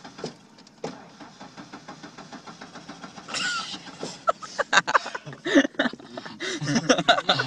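Ford Ranger pickup driving, heard from inside the cab as a steady engine and road rumble. From about three seconds in, talk comes in over it.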